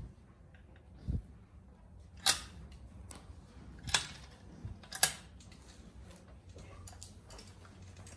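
A Boer goat's muzzle bumping and rubbing against the camera, giving sharp handling knocks on the microphone, four of them about a second apart in the first five seconds, over a low rumble.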